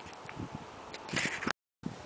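Faint handling noise on a wooden bench, with a few light clicks and a cluster of louder short knocks about a second in. Just after that, the sound drops out to dead silence for a moment.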